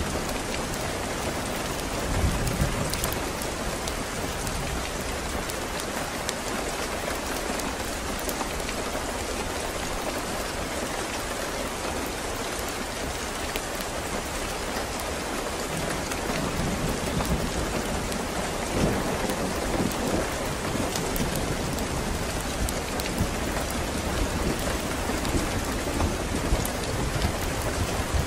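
Steady rain falling. A low rumble of distant thunder swells in about two-thirds of the way through.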